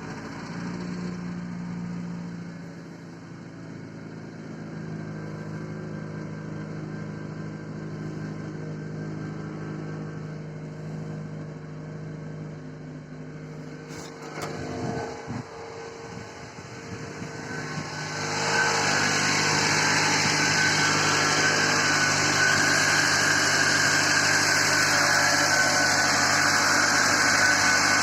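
A GAZ-3110 Volga's ZMZ-406 fuel-injected inline-four engine idling steadily just after starting. About two-thirds of the way through it becomes louder, with a high steady whistle over the engine sound; the whistle is the engine fault the owner is showing.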